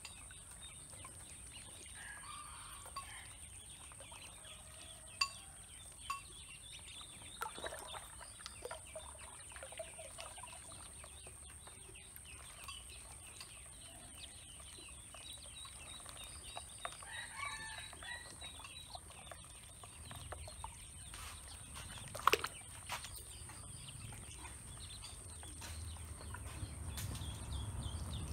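Ducklings peeping, faint scattered short high calls, with one sharp click about 22 seconds in and a steady faint high whine underneath.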